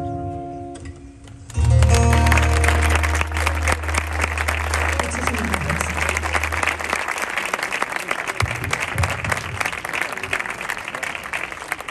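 A song's accompaniment, a plucked-guitar sound, fades out, then ends about a second and a half in on a loud final chord with a low note that holds for several seconds. An audience breaks into applause at the same moment; the clapping carries on and slowly dies down toward the end.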